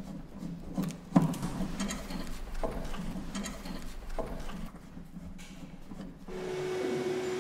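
Hands working the grille and loose body panels of a BMW 507, giving irregular clicks and knocks, the sharpest about a second in. Near the end a steady hum with a single held tone comes in.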